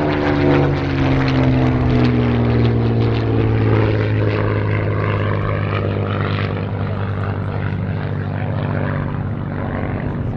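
A Supermarine Spitfire's Merlin V12 engine and propeller on a fast flypast. The loud engine note drops in pitch over the first few seconds as the aircraft passes, then settles into a steady lower drone as it flies away.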